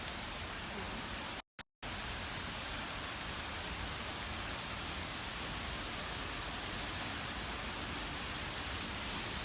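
Steady rain falling during a thunderstorm, a constant even hiss. The sound cuts out completely for a split second about a second and a half in.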